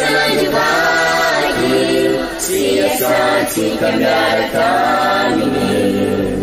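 A choir sings a Malagasy hymn refrain in several voice parts, holding long notes phrase after phrase.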